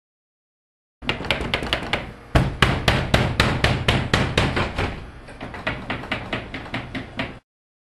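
Rapid, repeated knocking and banging with fists on a shop's glass front door. The knocks get louder about two seconds in and stop abruptly near the end.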